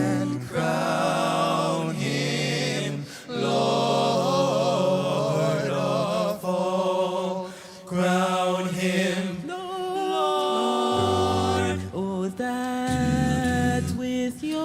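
A vocal group singing in harmony, holding long chords with vibrato that change every second or two, with short breaks between phrases.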